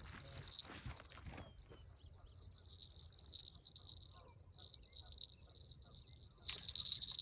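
A steady high-pitched insect-like trill that breaks off briefly midway and resumes, with bursts of rustling noise at the start and again near the end.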